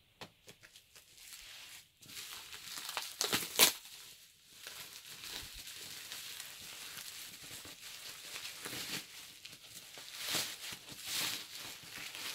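Bubble wrap crinkling and crackling as hands pull it off a parcel, in irregular bursts, the loudest about three and a half seconds in.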